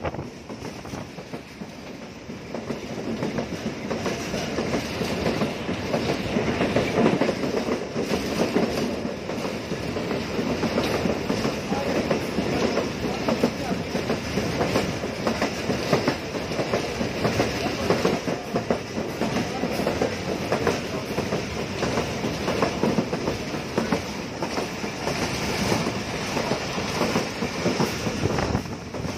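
Passenger train coaches running at speed, heard from an open coach window: the wheels clatter over the rails with a steady rumble and rattle, full of fast irregular clicks. It grows louder over the first few seconds, then holds steady.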